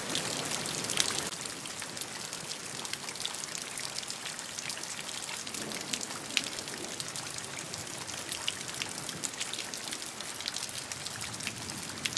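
Steady rain falling, with many separate drop hits heard through a continuous hiss. The sound cuts off abruptly at the end.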